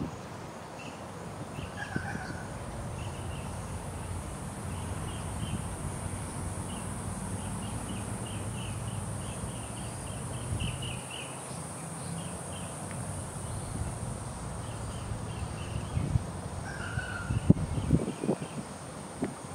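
Outdoor bird and insect sounds: a steady high-pitched insect drone with many short bird chirps in quick runs, and a few lower chirps about two seconds in and near the end. Several sharp knocks come near the end.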